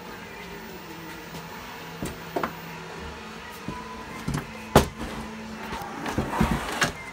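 Handling knocks and bumps from equipment being moved around on a workbench: a few scattered knocks, the loudest about five seconds in, and a quick cluster near the end, over a steady low hum.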